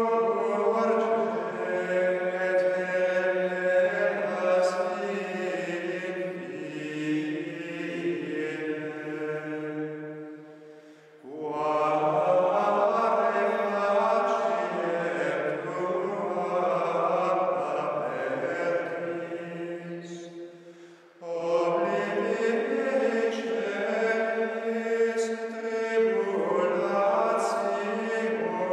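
Choir of monks' male voices singing unaccompanied plainchant in unison, in long held phrases. The chant dies away and starts again twice.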